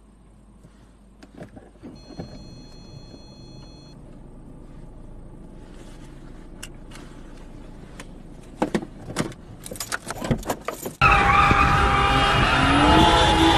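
Inside a crash-wrecked car: low steady noise with scattered clicks and knocks, and a steady electronic tone for about two seconds starting two seconds in. About eleven seconds in it cuts abruptly to a car's engine revving loudly, its pitch swinging up and down, with tyres screeching as the car spins in an intersection.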